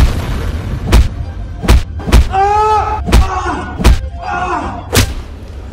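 A series of heavy punch-like thuds, about seven in five seconds, with a voice crying out in pain between them about two seconds in.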